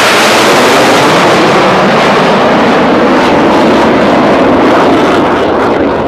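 Loud jet roar of U.S. Navy F/A-18 Hornets with twin turbofan engines passing low overhead, holding steady and easing off slightly near the end.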